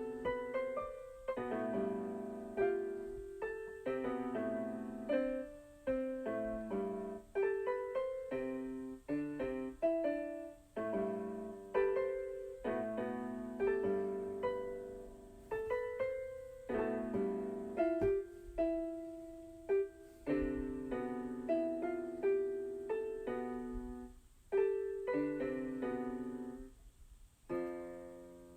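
Solo piano music played on a keyboard: a gentle melody of single notes and chords, each note struck and left to fade, ending on a chord that dies away near the end.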